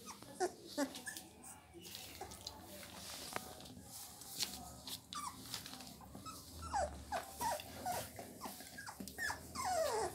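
Young Labrador Retriever puppies whimpering, a string of short high cries that each slide down in pitch, coming more often in the second half, with a quick run of them near the end.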